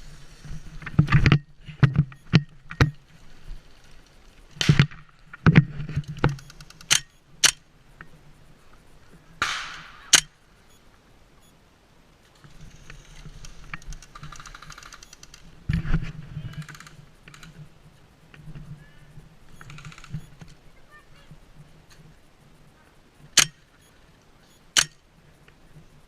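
Airsoft guns firing scattered single shots, heard as sharp cracks and clicks, mixed with knocks and rustling from the player moving and handling his gear.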